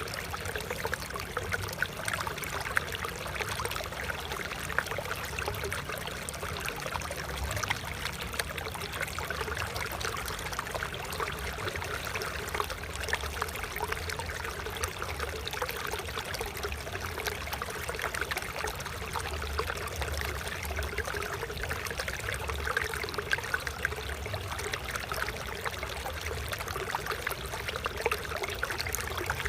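Water flowing and trickling steadily, a continuous babble of small splashes.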